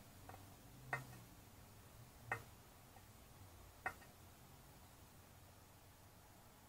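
Long metal feeding tongs clicking three times, about a second and a half apart, with a fainter click just before, against otherwise near silence.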